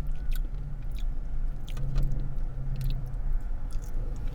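Close-up chewing of a bacon, cheese and blackened chicken sandwich: scattered short wet mouth clicks over a steady low hum.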